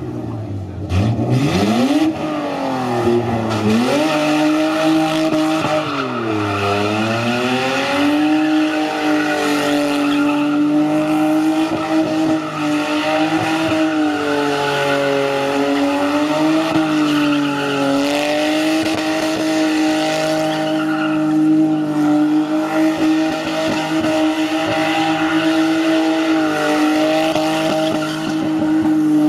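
BMW engine revved hard and held at high revs, up near the rev limiter, while its tyres spin and squeal in a smoky burnout. The revs dip and climb a few times in the first several seconds, then hold nearly steady with small wobbles.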